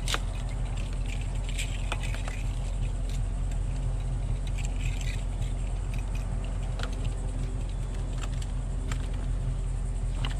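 A vehicle engine running steadily with a low hum, while loose items and rope are shuffled in a plastic bin, making scattered clicks and rattles.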